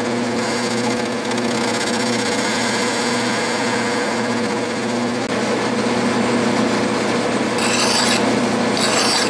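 Clausing 12-inch lathe running steadily, spinning a cast iron wing nut casting. Near the end, a flat hand file is stroked twice against the spinning cast iron, two rasping strokes each about half a second long.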